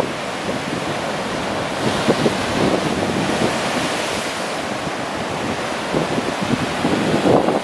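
Ocean surf breaking and washing against rocks below a cliff: a steady rushing noise that swells louder about two seconds in and again near the end, with wind buffeting the microphone.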